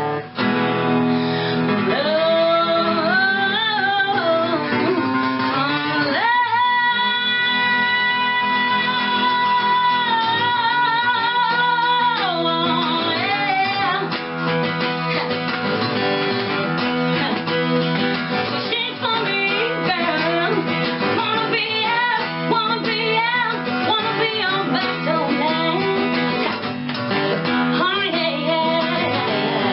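Song with guitar accompaniment and a singing voice; the voice holds one long note with vibrato from about six seconds in to about twelve seconds in.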